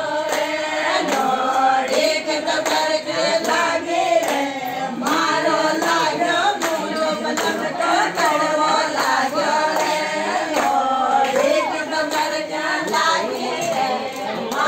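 A group of women singing a traditional wedding folk song together, as sung at a haldi (peethi) ceremony.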